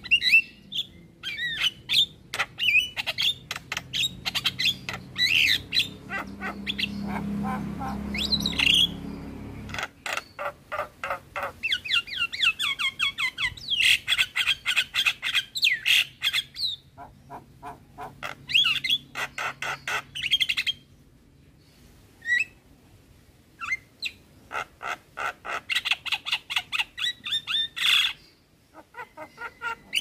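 Javan myna (jalak kebo) singing: fast runs of short chattering, whistled and harsh notes, broken by a few brief pauses in the second half.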